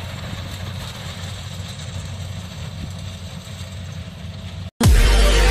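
Combine harvester's diesel engine running steadily with a low hum. It cuts off abruptly about four and a half seconds in, and loud electronic dance music with a heavy bass beat starts.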